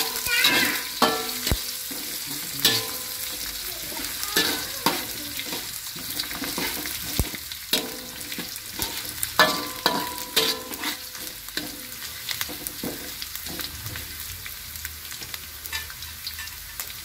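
Lemongrass, galangal, bay leaves and lime leaves sizzling in hot oil in a wok, fried until fragrant, while a metal spatula stirs and scrapes the pan. The scrapes thin out after about ten seconds, leaving the steady sizzle.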